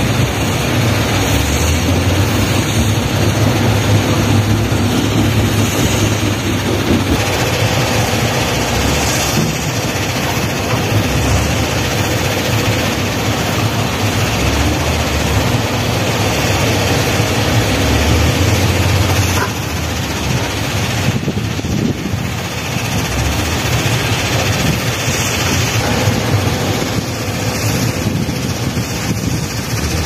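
Diesel engines of a JCB backhoe loader and a dump truck running steadily while soil is loaded, a low rumble under a dense hiss of noise, dipping slightly about two-thirds of the way through.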